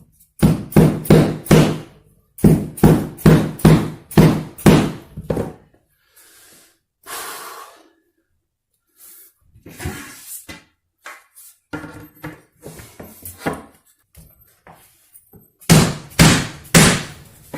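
Hammer blows on a hardwood floor plank, in three runs of quick strikes about three a second, with a short scrape between the first two runs and the last.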